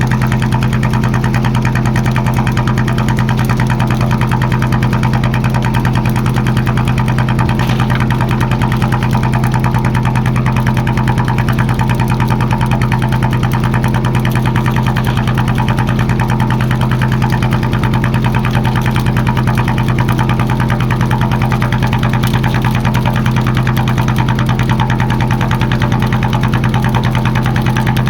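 Fishing boat engine running steadily at a constant speed, with an even rapid pulsing throughout.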